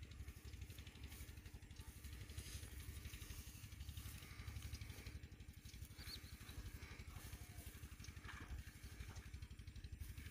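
Faint, steady low rumble of outdoor background noise, with a few small rustles and clicks.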